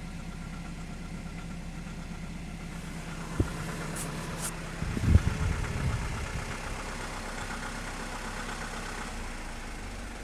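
BMW N46B20 four-cylinder petrol engine idling steadily, with a sharp click about a third of the way in and a short cluster of loud knocks about halfway through. The knock is the one the owner reports at low rpm, with a small rpm dip, when shifting between Drive and Reverse.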